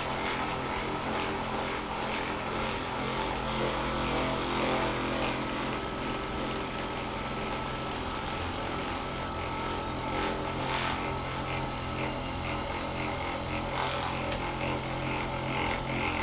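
Handheld electric massager running with a steady motor hum as it is worked over the hip.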